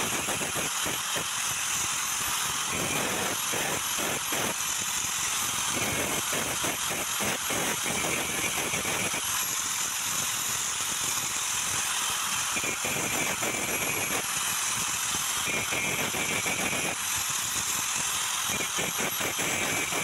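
A small handheld power tool running steadily while it smooths the freshly cut end of a fan motor's cast housing where the thread was cut off.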